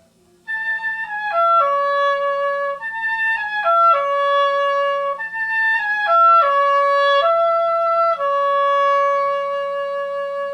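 Oboe playing a short falling phrase three times, sliding from the upper A down to the C sharp and holding it. The last C sharp is held long. This is practice at making the C sharp 'sing' rather than sound fingered.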